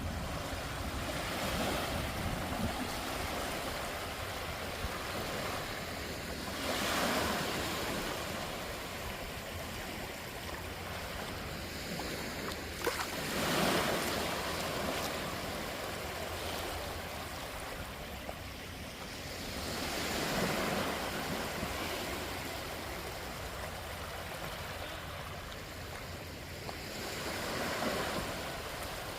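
Sea waves breaking on a beach: a steady wash of surf that swells with a new breaker about every six seconds.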